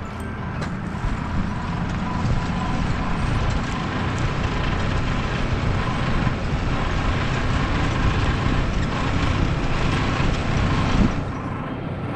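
Massey Ferguson 3060 tractor's diesel engine running steadily under load while it pulls a rear-mounted harrow across dry ground. It grows louder as the tractor comes by and drops off about eleven seconds in.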